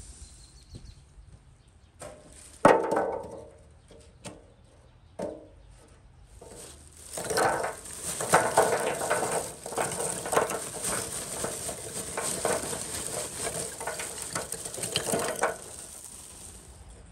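Lumpwood charcoal sticks poured from a sack into a sheet-steel mangal grill, clattering against each other and the metal for about eight seconds. Before that there is one loud knock and a few lighter knocks.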